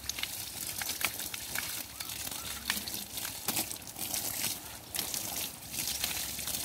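Water from a hose spraying and splashing over a cow's hide and onto wet ground, an uneven hiss broken by many small splatters.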